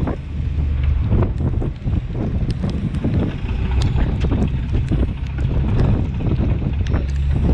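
Strong wind buffeting the microphone on a small fishing boat in a squall, over a steady low drone from the boat's engine. Scattered sharp ticks of rain and spray hit the boat throughout.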